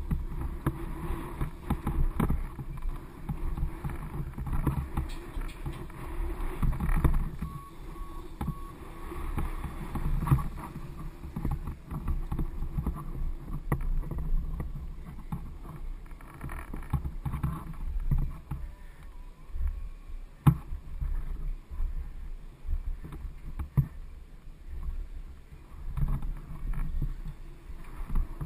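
BMX bike rolling over a packed-dirt track, picked up by a handlebar-mounted camera: a fluctuating low rumble of wind and tyre noise, with rattles and sharp knocks from the bike and mount over the bumps. One knock about two-thirds through is louder than the rest.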